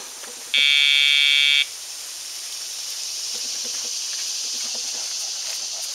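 Dog e-collar pager giving one steady electronic buzz about half a second in, lasting about a second: the cue for the dog to turn.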